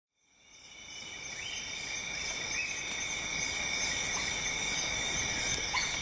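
Chorus of insects trilling steadily at several high pitches over a soft hiss of background noise, fading in from silence over the first second or two.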